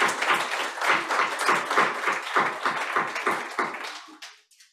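Audience applauding, the clapping dying away about four seconds in.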